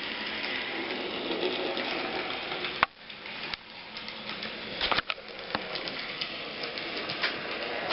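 A model train runs along the track with a steady whirring clatter. About three seconds in it breaks off with a sharp click and goes quieter. Scattered sharp clicks follow, the loudest about five seconds in.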